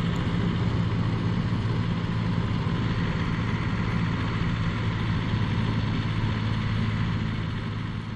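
Engine running steadily aboard a small car ferry, a deep even hum that eases off near the end.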